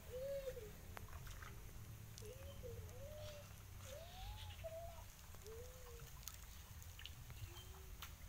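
An animal's faint short calls, about seven of them, each rising and falling in pitch like a mew or whine, over a steady low rumble.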